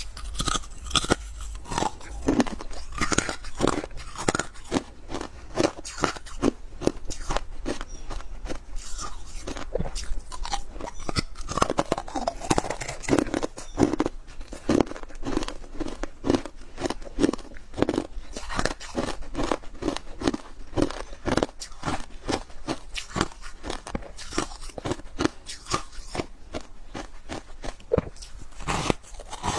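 Freezer frost being bitten and chewed close up: a continuous run of crisp crunches, several a second.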